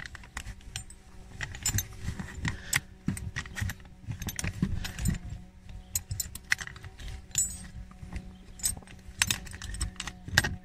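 A T25 Torx screwdriver undoing a screw in a car's under-dash trim panel: many sharp, irregular metallic clicks and clinks of the bit and tool.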